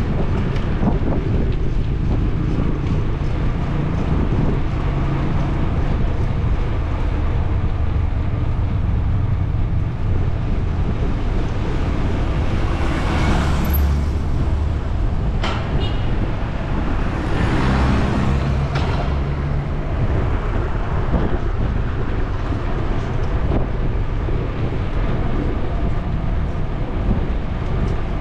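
Street traffic heard from a moving bicycle, over a steady low rumble of wind on the microphone and road noise. Two vehicles pass close by about halfway through, a few seconds apart, each swelling and fading.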